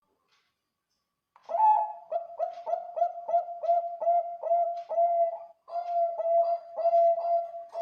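Zebra dove (perkutut, Bangkok line) singing: a long run of short, rhythmic cooing notes, about three a second, starting after about a second and a half of silence and briefly pausing partway through.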